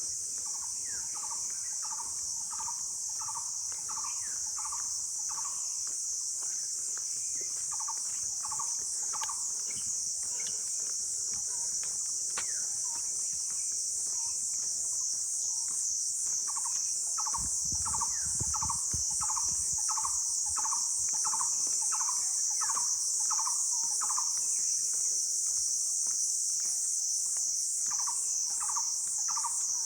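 A shrill, steady chorus of insects with a fast pulsing buzz. Over it a bird repeats a short falling note about three times a second in runs, with pauses between. A brief low rumble comes about two-thirds of the way in.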